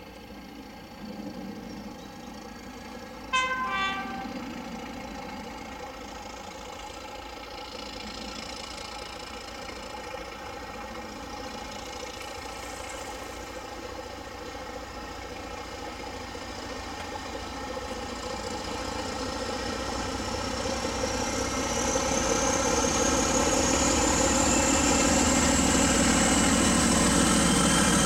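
Class 31 diesel-electric locomotive sounding a brief two-tone horn, a high note then a lower one, about three seconds in, then its diesel engine working hard on departure with a train, growing steadily louder as it approaches, a high whine rising in pitch over the last several seconds.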